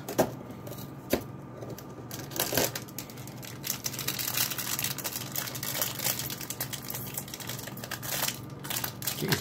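Cardboard advent-calendar door being pried open and the small box inside worked out by hand: rustling, scraping and tapping of cardboard, with a couple of sharp clicks in the first second and denser crackly handling after about two and a half seconds. The box is a tight fit and hard to get out.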